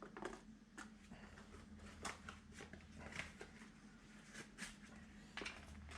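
Faint rustling and light clicks of the packaging and small parts of a new fuel filter kit being handled and unpacked, over a low steady hum.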